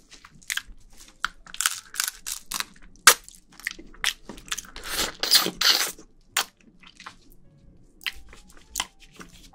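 Close-miked mouth sounds of someone eating spicy marinated raw crab: wet chewing, smacking and sucking of the sticky crab, with crackles from the thin shell. They come as clusters of short, sharp clicks, with a brief lull near the end.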